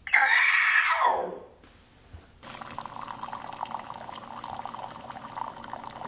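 A man's loud vocal call falling in pitch for about the first second. After a short pause, a Keurig coffee maker starts dispensing, a steady stream of liquid pouring into a cup.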